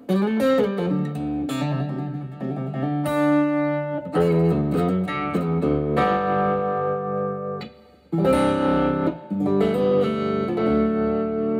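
Intro music played on a guitar: a run of plucked notes, with a brief pause about eight seconds in.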